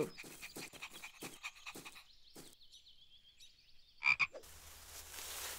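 Cartoon sound effect of a frog croaking: one short, loud croak about four seconds in, after soft taps and a faint warbling.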